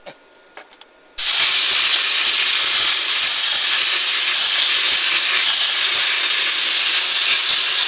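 Plasma cutter hissing steadily as its arc cuts a taper into a steel truck frame rail. It starts about a second in, after a couple of faint clicks.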